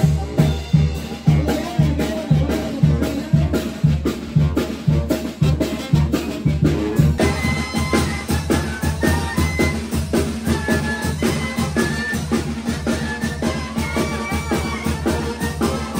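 Mexican brass band (banda) music: a sousaphone bass line pumping a steady beat under drums, with a higher melody coming in about seven seconds in.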